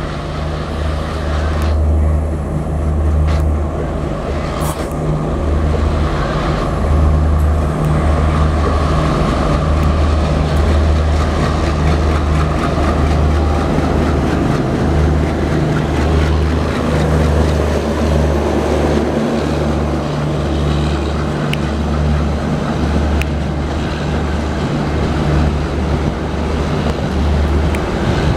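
WDM-3A diesel locomotive's ALCO engine throbbing steadily and loudly as it approaches and passes at close range. Its coaches then roll by with wheels clattering over the rail joints.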